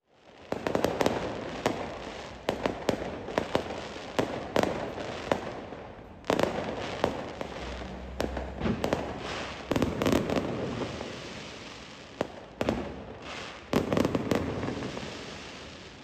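A fireworks display going off: a rapid run of sharp bangs and crackles from bursting shells, with several heavier volleys a few seconds apart.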